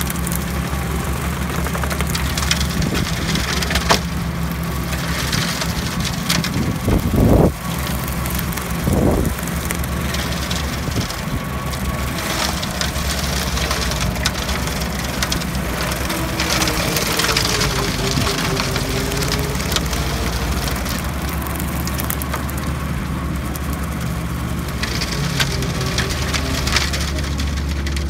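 Small tractor engine running steadily under load while driving a rear-mounted rotary slasher through grass, with two louder thumps about seven and nine seconds in.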